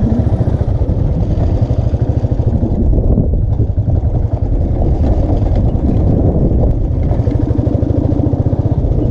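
Royal Enfield single-cylinder motorcycle engine running steadily as the bike is ridden, a dense, even train of low firing pulses.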